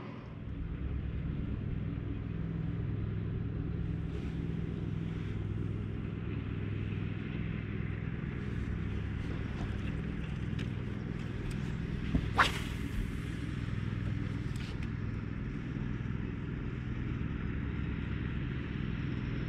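Steady low hum of a bass boat's electric trolling motor running, with a single sharp click about twelve seconds in.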